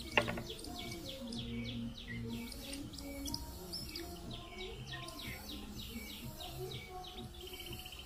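Nestling birds of prey begging with a rapid string of high, short calls that slide downward, as they are fed with tweezers. A sharp click sounds just after the start.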